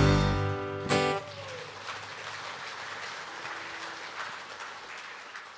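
A live gospel band's final chord ringing out on guitars and drums, with a last full-band hit about a second in. The music then gives way to audience applause, which fades out near the end.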